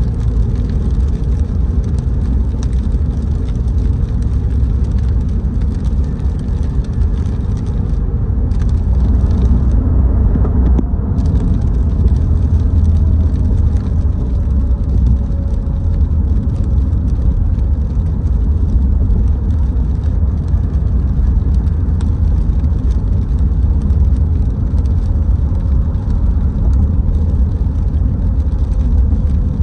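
Car driving: a steady low rumble of engine and road noise, with a faint whine that slowly changes pitch in the second half.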